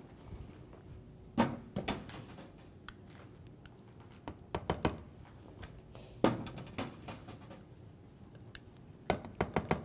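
Metal tongs clicking and knocking against a saucepan as boiled corn-cob pieces are lifted out of the broth and set into a skillet: a scattered series of short clinks and soft knocks, with a closer cluster near the end.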